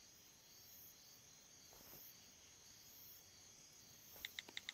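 Near silence with faint cricket-like night ambience. About four seconds in, a quick run of clicky smartphone keyboard taps begins, several taps a second.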